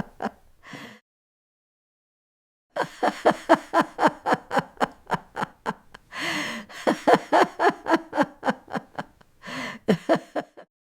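An old woman laughing in long runs of quick voiced ha-ha pulses, about four to five a second, with breathy gasping in-breaths between runs. It stops for nearly two seconds about a second in, then starts again.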